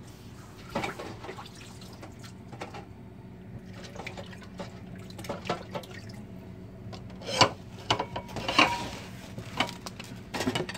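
Washing up at a kitchen sink: water splashing and dripping as a stainless steel strainer is rinsed, with sharp clatters of metal and plastic dishware against the sink, the loudest coming in the second half. A steady low hum sits underneath.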